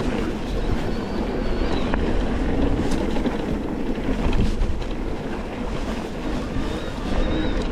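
Wind buffeting a GoPro's microphone during fast movement, a steady rumbling rush.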